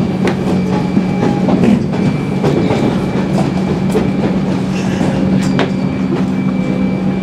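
Interior noise of a moving electric suburban train carriage: a steady hum from the running gear, a thin high whine, and scattered clicks and rattles of the wheels over the track.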